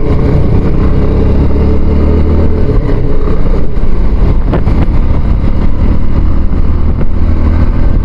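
Bajaj Avenger motorcycle's single-cylinder four-stroke engine running steadily while riding along a road, heard from the rider's seat.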